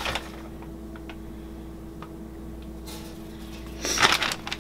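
Kitchen room tone: a steady low hum with a few faint ticks, then about four seconds in a short burst of rustling as the cook handles things at the counter.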